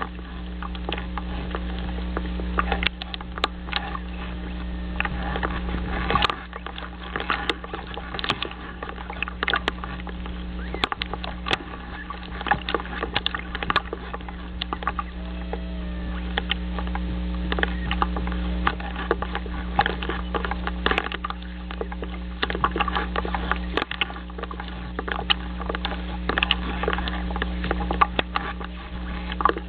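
Choppy lake water lapping and splashing against a loon's shoreline nest, heard as a constant crackle of small clicks, over a steady electrical hum from the nest-cam's microphone.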